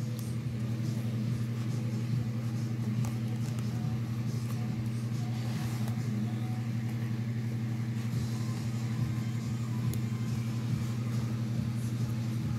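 A steady low hum, with faint rustling and small clicks of fabric strips being handled and wrapped.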